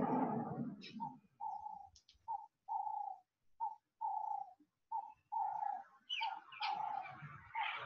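A broken run of about a dozen short, steady-pitched animal calls, all at the same pitch, some brief and some drawn out to about half a second, with a few faint high clicks between them.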